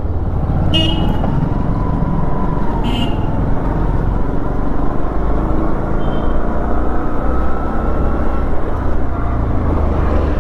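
Motorcycle engine running steadily at low riding speed, with road and wind noise, and two short horn toots about one and three seconds in.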